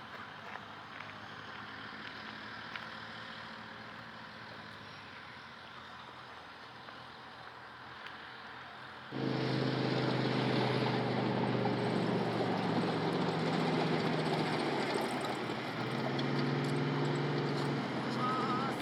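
Heavy military vehicle diesel engine running: faint at first, then much louder and closer from about halfway in, with a steady low engine note.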